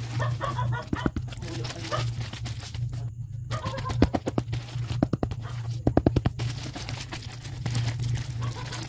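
Plastic parcel packaging crinkling and tearing as it is handled and opened, in many short rustles and clicks over a steady low hum.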